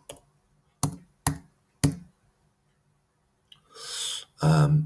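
Three separate keystrokes on a computer keyboard, about half a second apart, typing a three-letter ticker. Near the end, a short breathy hiss and then a man starts speaking.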